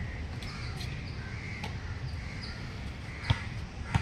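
Birds calling over and over in short calls, over a steady outdoor background. A few sharp thuds of a basketball bouncing on a hard court come through, one faint about a second and a half in and two louder ones near the end.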